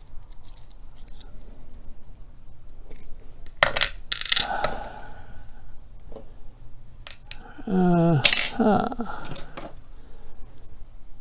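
Small metal padlock parts (pins and springs) clicking and clinking as they are handled and dropped into a parts tray, with one ringing clink about four seconds in. A short wordless vocal sound, like a hum, comes about eight seconds in.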